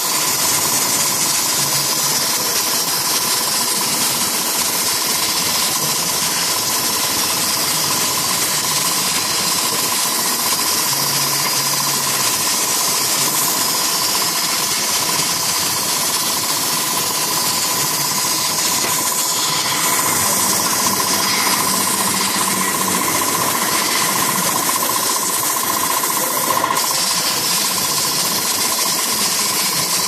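CNC plasma cutter's arc cutting galvanized sheet steel: a loud, steady hiss with a constant high tone.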